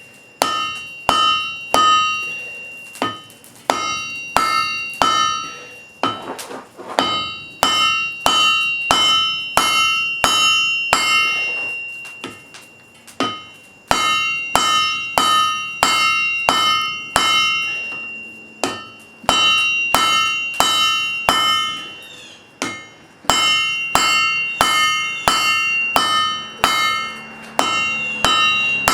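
Hand hammer striking hot wrought iron on an anvil, about two blows a second in runs with short pauses, the anvil ringing after each blow.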